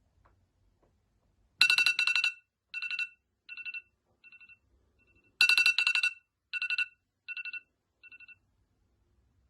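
Electronic wake-up alarm tone ringing: two rounds of rapid high beeps, each round starting loud and fading away over about three seconds.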